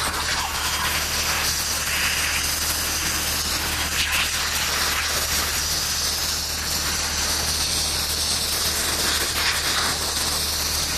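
Garden hose pistol-grip spray nozzle jetting a steady, hissing spray of water onto a ladyfish on a wooden cutting board, blasting the scales off.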